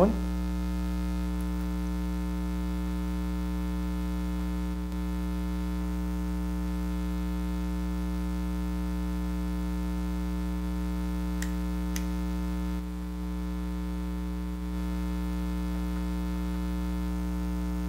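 Steady electrical mains hum with a buzzy stack of overtones: interference from the powered mixing console picked up by a lavalier microphone. Two faint ticks a little past the middle.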